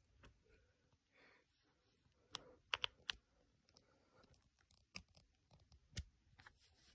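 Near silence with a few faint, sharp clicks: a small cluster a little over two seconds in, then single clicks near five and six seconds.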